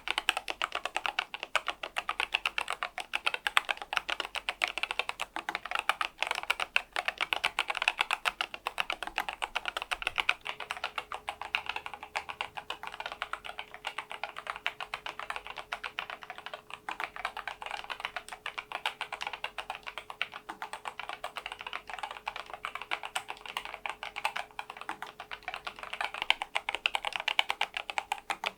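NuPhy Air96 V2 low-profile wireless keyboard with stock Gateron low-profile 2.0 red linear switches and its stock low-profile keycaps, typed on continuously in a fast, steady clatter of key presses.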